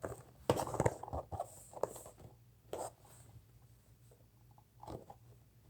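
Plastic toy pieces and packaging being handled: bursts of rustling, scraping and clicking, busiest in the first second, then a few scattered handling noises.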